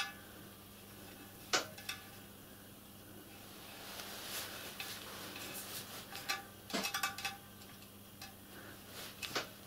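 Small scattered metallic clicks and taps of a screwdriver and a tiny countersunk 6BA screw being worked into a hole in a steel band around a copper boiler barrel. There is a click about a second and a half in, a quick cluster of clicks around seven seconds, and another couple near the end.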